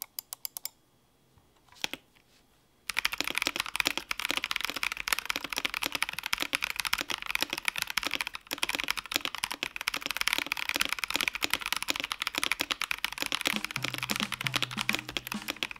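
Typing sound test on an ikki68 Aurora polycarbonate gasket-mount mechanical keyboard with Boba U4T tactile switches. A few single keystrokes come first, then from about three seconds in, continuous fast typing.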